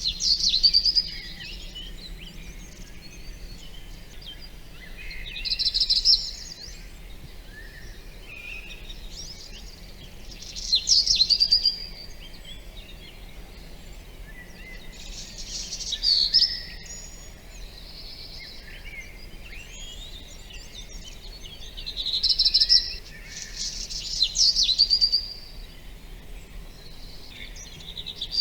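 Songbird singing short, loud phrases about every five or six seconds, with fainter bird calls between them over a steady background hiss.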